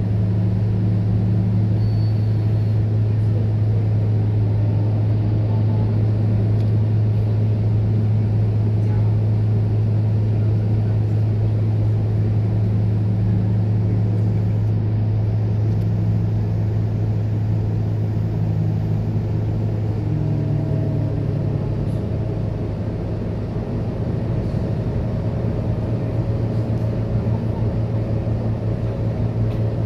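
Scania K230UB bus's diesel engine running under way, heard from inside the passenger cabin as a steady low hum with road rumble. A little past halfway it eases off briefly, and near the end the hum turns rougher and uneven.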